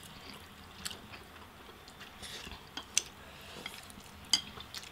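Close-up mouth sounds of people eating instant noodles: soft slurping and chewing, broken by occasional sharp smacks and clicks.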